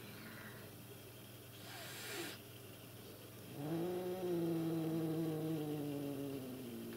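Cat hissing briefly, then a long, low growling yowl of about three seconds that slowly falls in pitch: a cat warning off another cat in a standoff.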